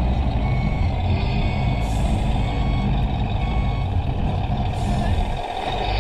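RC scale truck's sound module playing a reversing beeper, short beeps about once a second, over a low diesel-engine rumble, with two short air-brake hisses.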